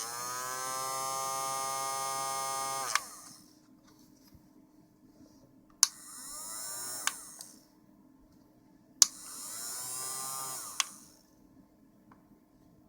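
Hand-held hair dryer switched on with a click, its motor whining up to speed with a rush of air, running about three seconds, then clicked off and winding down. It is switched on and off twice more in shorter runs of about a second and a half each.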